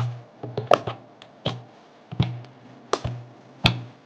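Magnetic keyboard switches on a ROG 夜魔 98 HE hot-swap board being pulled or pressed into place one at a time: a sharp plastic click about every three quarters of a second.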